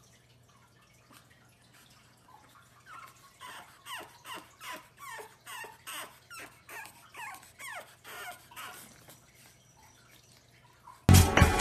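Pug puppy crying in a run of short, high-pitched cries, each falling in pitch, about three a second for several seconds. Loud music cuts in near the end.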